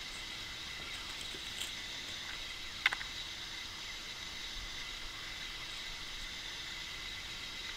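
Steady quiet background hiss with faint high steady tones, and a single short sharp click about three seconds in.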